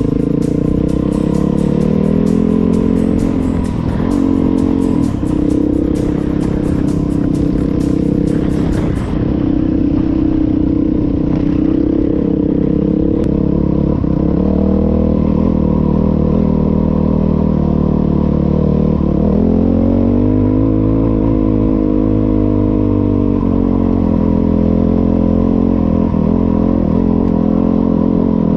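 Yamaha WR450F single-cylinder four-stroke engine running while riding, its pitch rising and falling as the throttle is rolled on and off. A fine, rapid clatter runs through roughly the first third and stops abruptly.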